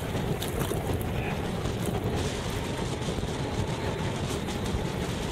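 Heavy wind buffeting the microphone: a steady low rumble with an even hiss above it and a few faint light ticks.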